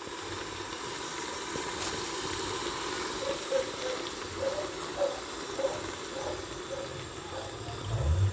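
Covered pot of cabbage, callaloo and other vegetables cooking in hot oil, sizzling and steaming with a steady hiss and light crackling. A low thump comes near the end.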